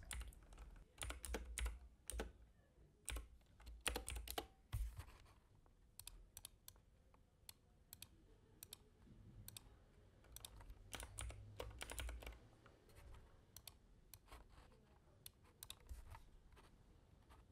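Faint typing on a computer keyboard: short irregular runs of key clicks, busiest in the first few seconds and again a little past the middle.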